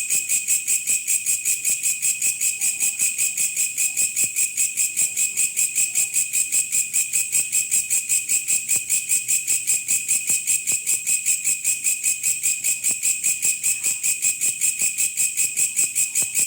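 Koslet insect calling from the wild: a continuous high-pitched buzzing trill, pulsing evenly at about five pulses a second.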